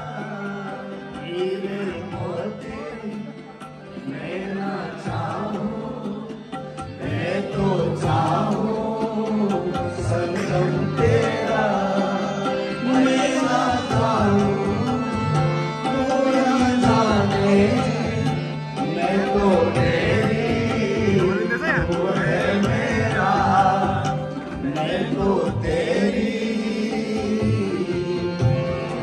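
A man singing a melodic, ornamented song into a microphone while playing a harmonium, whose held chords sound under the voice, with a steady hand-drum beat.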